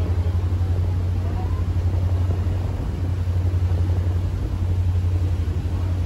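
Ferry's engines droning with a steady low hum, under the rushing hiss of the wake churning along the hull.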